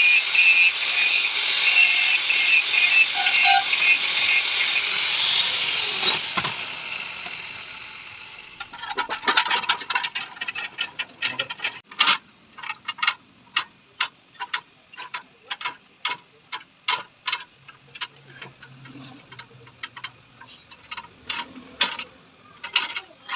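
A steady high-pitched noise fades out over the first several seconds. Then a long, irregular run of sharp metallic clicks, clinks and taps follows as hand tools work on a motorcycle's rear monoshock during its strip-down.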